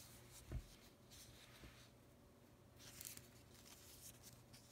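Faint rustling and sliding of a folded paper zine being handled in the hands, with a soft low thump about half a second in.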